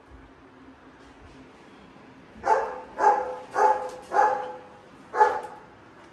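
A dog barking five times in quick succession, starting about halfway in.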